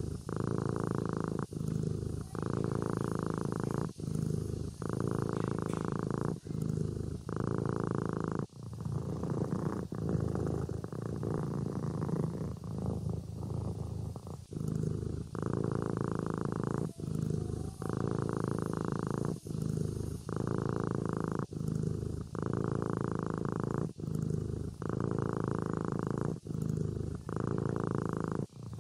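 Kitten purring: a continuous low rumble broken by short pauses about once a second.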